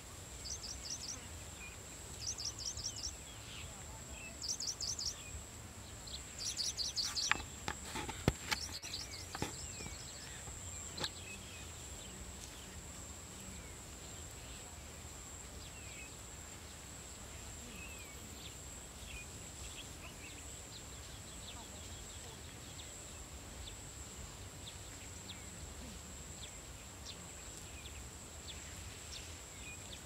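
Countryside ambience in a field: a steady high-pitched insect drone throughout, with a bird calling in short, rapid trills through the first ten seconds or so, and a few sharp knocks about seven to nine seconds in.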